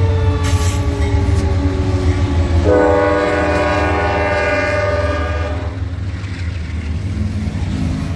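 CSX freight train passing close by: the lead diesel locomotive's air horn sounds with its chord sliding down in pitch as it goes by, then a fresh horn blast starts nearly three seconds in and cuts off about three seconds later. Under it runs the steady low rumble of the locomotives and rolling wheels.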